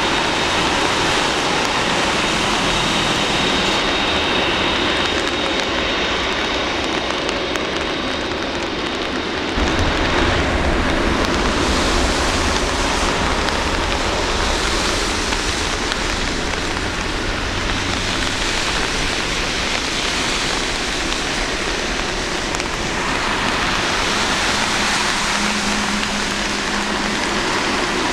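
Boeing 747 freighter's four jet engines running at low taxi thrust with a thin high whine, under the steady hiss of rain. About ten seconds in, a deeper rumble comes up as thrust is added while the aircraft rolls onto the runway.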